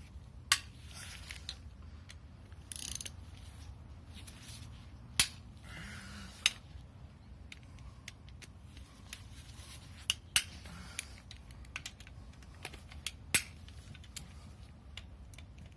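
Scattered sharp metallic clicks and clinks of hand tools being handled on the engine, with two short scraping rasps, one about three seconds in and one about six seconds in.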